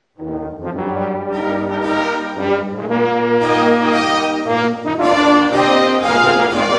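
Brass band begins playing a hymn, starting abruptly out of silence about a fifth of a second in: several brass instruments hold sustained chords together.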